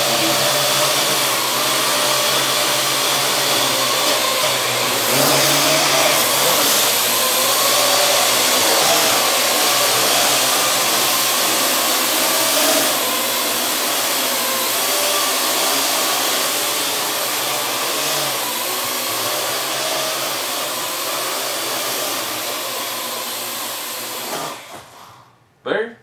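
Parrot AR.Drone quadcopter hovering: its four electric motors and propellers whirring in a steady buzzing whine, pitch wavering slightly as it holds position. The sound falls away and cuts off about a second before the end.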